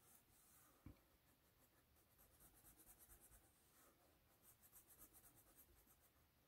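Faint scratching of a wax crayon colouring in on drawing paper, in quick back-and-forth strokes. A soft thump about a second in.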